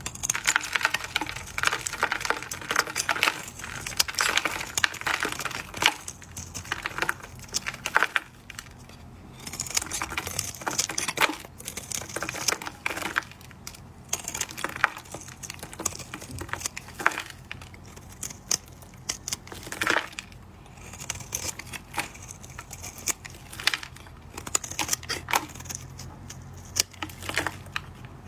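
A bar of dry soap being carved and cut: a dense run of crisp crackles and scraping as the blade bites in and soap crumbles, coming in bursts with short pauses between strokes.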